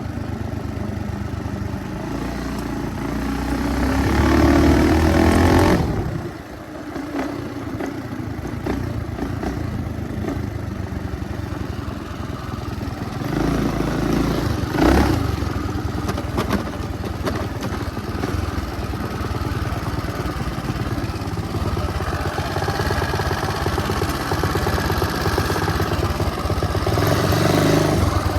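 Small motorbike engine running under way, revving up and easing off: it climbs to a peak and cuts back suddenly about six seconds in, surges briefly again around the middle, and builds steadily through the last few seconds.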